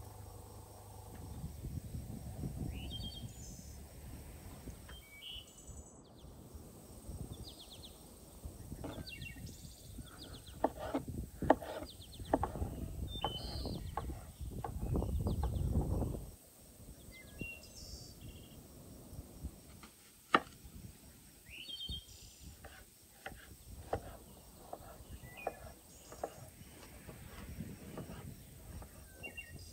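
Kitchen knife chopping vegetables on a wooden cutting board: irregular sharp taps of the blade on the board, a few much louder, with birds chirping around. A low rumble swells twice, the second time near the middle.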